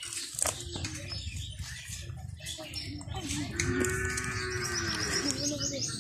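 A cow mooing once, a long call starting about three and a half seconds in and lasting nearly two seconds, over the rustling and clicking of a cast net being handled as fish are picked out of it.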